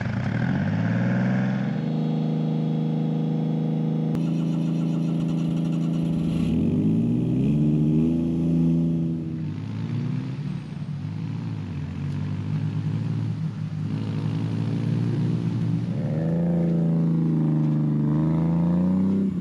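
Small engine running, steady for the first few seconds, then revved, its pitch rising and falling with the throttle, about six seconds in and again near the end.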